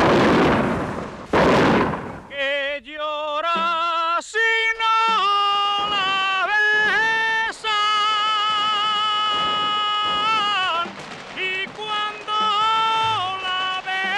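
Two bursts of fireworks, then a man singing an albà, the Valencian night-time folk song, in long held notes with a strong wavering vibrato and ornamented turns.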